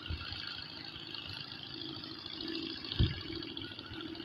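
Steady rushing of water around a boat, with one low thump about three seconds in.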